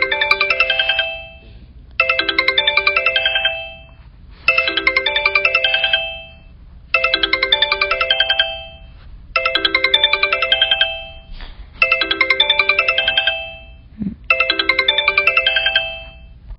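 A custom ringtone on an iPhone SE (2016): the same short, fast run of bright notes loops seven times, about every two and a half seconds, over a low steady hum.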